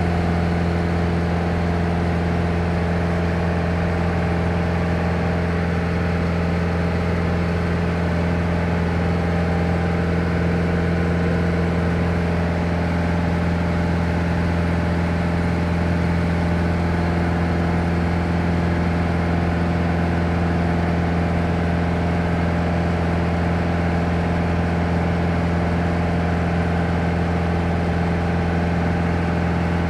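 Light touring aircraft's piston engine and propeller droning steadily at cruise, heard inside the cabin, with an unchanging low pitch.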